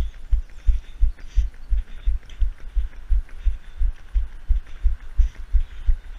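Footfalls of someone running with the camera, heard as an even beat of low thuds about three a second, over a light hiss.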